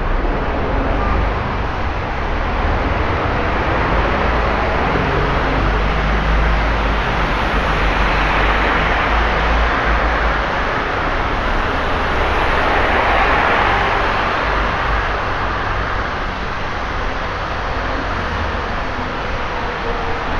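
Road traffic on a rain-soaked city street: a steady low rumble of engines under the hiss of tyres on wet tarmac, with two vehicles swishing past about eight and thirteen seconds in.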